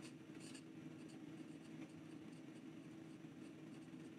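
Faint scratching of a Platinum Balance fountain pen's medium steel nib writing in short strokes on Clairefontaine 90 GSM paper, over a steady low hum.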